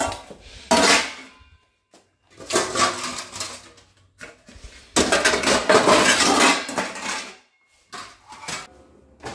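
Steel kitchen utensils and dishes clattering as they are handled and put away, in several separate bursts, the longest near the middle.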